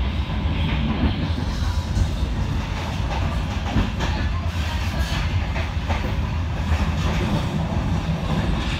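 Passenger train running at speed, heard from inside the coach: a steady rumble of wheels on rail with a few sharp clicks now and then.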